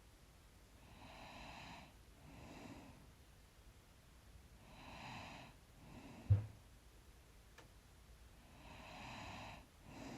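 A person's slow breathing in sleep, close to the microphone: soft breaths in and out, coming about every four seconds. A short low thump a little past the middle is the loudest sound.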